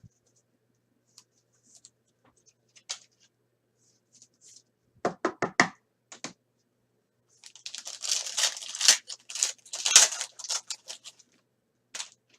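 Trading card pack wrapper being torn open and crinkled, with a quick run of about five knocks just before it.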